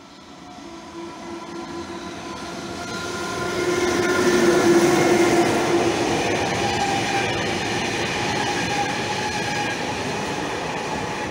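A locomotive-hauled freight train of loaded flatcars approaches and passes close by at speed. It gets louder up to about four or five seconds in, with a steady pitched hum of several tones from the locomotive, then the wagons keep rumbling past on the rails.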